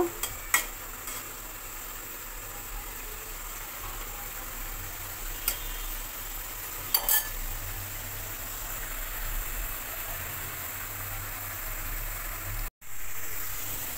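Bata fish curry simmering and sizzling in an aluminium karahi, a steady hiss as the fish cook in the thick gravy. A few light clicks of the metal spatula against the pan near the start, and the sound drops out for a moment near the end.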